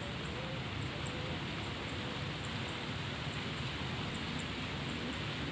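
Steady outdoor noise of wind and rustling vegetation, with faint short high chirps repeating irregularly and a few faint low short calls.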